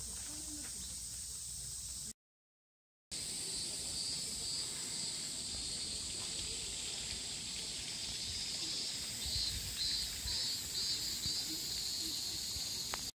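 Outdoor summer ambience: a steady high-pitched buzzing hiss that swells in a few even pulses near the end. The hiss breaks off briefly for a silent cut about two seconds in.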